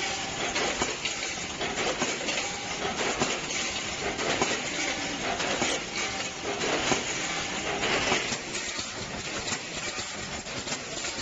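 Automatic multihead combination weigher and bag filling-sealing machine running: a dense, steady clatter of many small clicks over a hiss.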